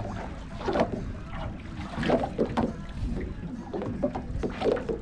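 A small fishing boat drifting on choppy sea: irregular slaps and splashes of waves against the hull over a steady low rumble.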